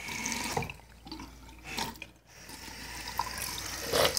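Water running from a bathtub tub spout, a steady splashing hiss that breaks off briefly about halfway through and comes back louder near the end.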